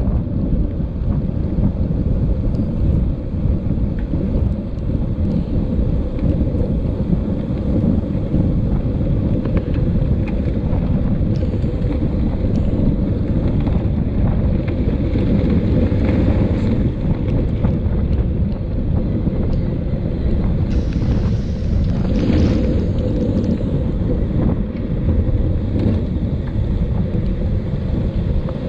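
Wind buffeting the microphone of a camera mounted on a mountain bike as it is ridden: a steady low rumble, with occasional clicks and rattles from the bike.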